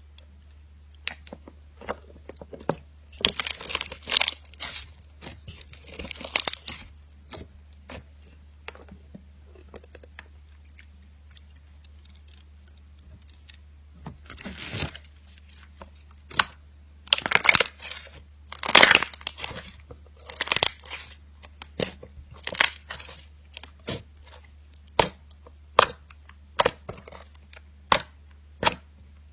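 Slime being squeezed and stretched by hand, giving clusters of sharp clicks, pops and crackles, with a quieter spell in the middle, over a steady low electrical hum.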